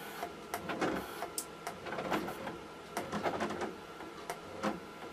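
3D printer bed stepper motors energised but stalling: a steady high whine with irregular clicks and ticks as they fail to move the bed. The builder blames an overloaded power supply; the fault was a cracked solder joint on one phase of a motor driver.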